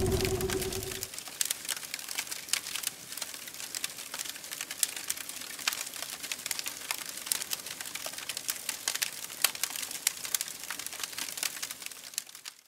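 A motor's steady hum fades out about a second in. Then faint, continuous crackling follows: many small, sharp clicks at irregular intervals over a soft hiss.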